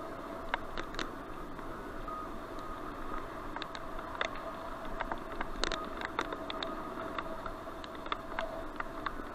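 Bicycle ride on a dirt path heard through a helmet-mounted action camera: steady rolling noise with a faint steady whine, broken by many irregular sharp clicks and rattles as the bike and camera mount jolt over the ground.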